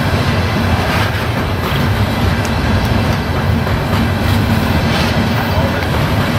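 CSX freight train of open hopper cars rolling past on the rails: a steady rumble, with the wheels clicking sharply over the rail several times.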